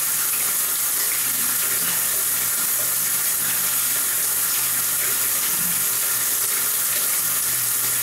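Water running steadily in a tiled shower stall, an even hiss with no pauses.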